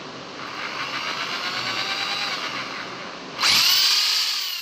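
Bosch GSB 501 500-watt corded impact drill running free: its motor whine winds up, holds and eases off, then about three and a half seconds in a louder run starts suddenly and winds down in pitch.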